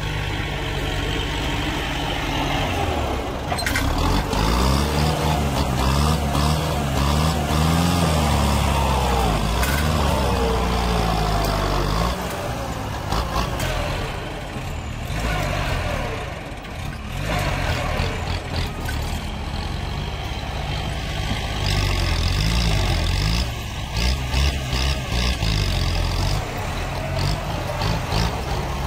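Kubota tractor's diesel engine working under load, revving up and down as it pulls a tree stump out with a chain. A few sharp knocks and clanks sound over the engine.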